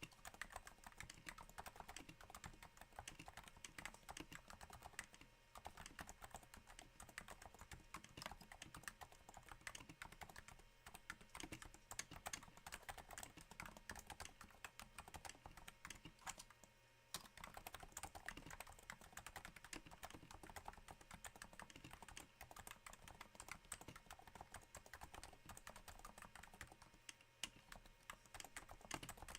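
Quiet, continuous typing on a Cooler Master Novatouch keyboard with Topre capacitive switches damped by Hypersphere silencing rings. The keystrokes are muted and come in a dense, uneven patter that sounds a little like rain, with a brief lull a little over halfway.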